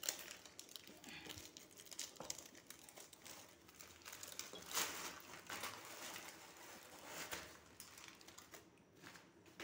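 Plastic packaging crinkling and rustling as a hand pulls a plastic courier wrapper off a cardboard box, with a louder crackle about five seconds in.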